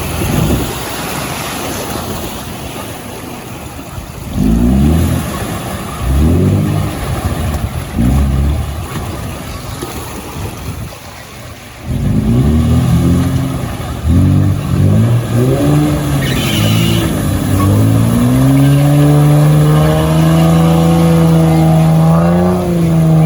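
Toyota Land Cruiser engine revving in repeated bursts as it drives off-road, then held at high, steady revs for the last few seconds.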